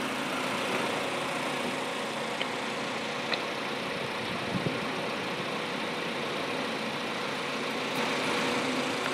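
Fiat 500 engine idling steadily, a low even hum.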